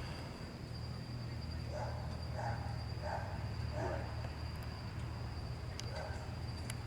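Night insects trilling steadily at one high pitch, over a low steady hum.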